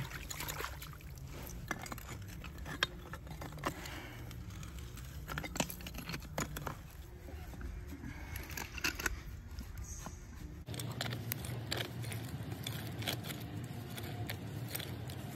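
Water spraying and splashing from a live water service line into a flooded hole while brass fittings are worked onto the poly pipe under pressure, with many scattered sharp metallic clinks from the fittings and a wrench.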